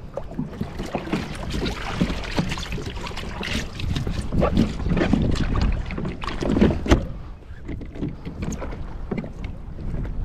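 Irregular knocks, clunks and rattles of hands handling gear on a plastic kayak deck and hatch, loudest in the middle, over a steady low rumble of wind on the microphone.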